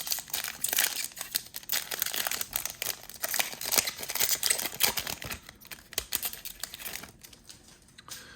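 Trading card pack wrapper being torn open and crinkled, a dense crackling rustle that stops shortly before the end.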